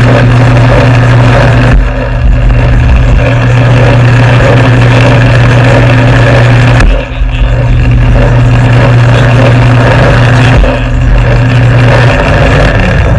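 Old belt-driven metal lathe running, its electric motor giving a loud steady hum as the tool turns a white workpiece, with a few short sudden dips in the sound.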